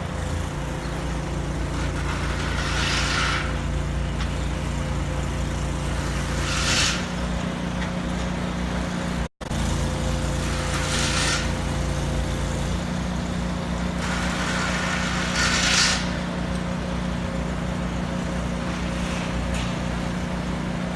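An engine running steadily with a low drone, with short hisses breaking in every few seconds. The sound cuts out briefly a little before the middle.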